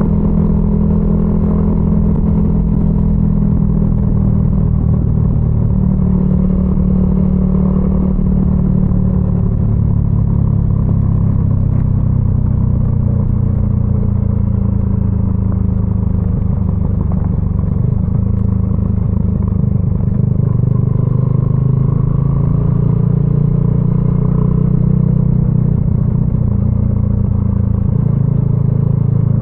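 Yamaha XSR155's single-cylinder four-stroke engine running through a DIY exhaust while cruising, its note drifting gently up and down with the throttle.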